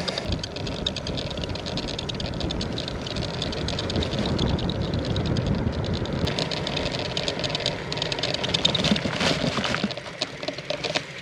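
Bicycle riding noise on a paved road: a steady rumble of tyres with a continuous rattle from the bike, easing a little near the end.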